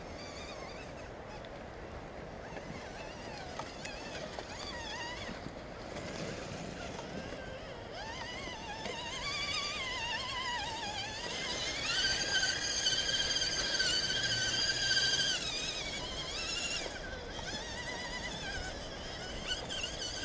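Electric motors and geartrains of Axial SCX10 radio-controlled crawler trucks whining as they climb a rough dirt trail, the pitch rising and falling with the throttle and loudest past the middle. A sharp knock comes at the very end as one truck tips onto its side.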